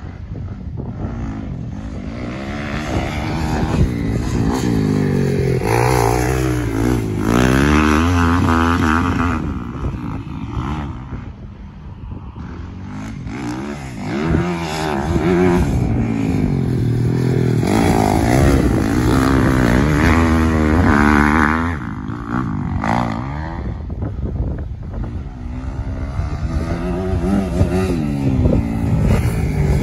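Dirt bike engine revving up through the gears, the pitch climbing and dropping again with each shift, over and over. It dips briefly about twelve seconds in, then comes back louder.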